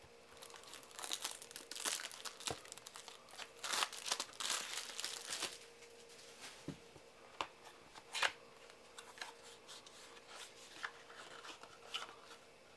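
Crinkling and tearing of the wrapping on a sealed trading-card starter deck box as it is torn open, for the first five seconds or so. After that come scattered light clicks and taps as the cardboard box is handled and the cards are slid out.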